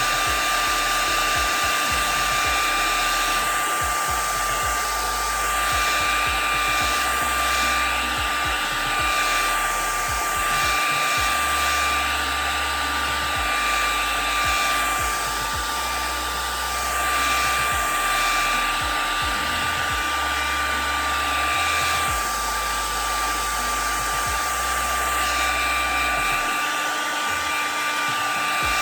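Handheld blow dryer running steadily, a constant whine over its rushing air, blowing lace-wig glue dry.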